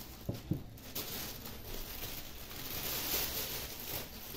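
Thin plastic bag rustling and crinkling as a handheld angle grinder is lifted out of it, with two light knocks about half a second in.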